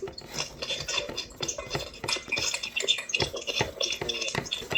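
Kitchen utensil beating butter in a mixing bowl, scraping and clinking against the bowl in quick repeated strokes, heard over a video call. This is butter being worked into crumbly pea-sized bits for biscuit dough.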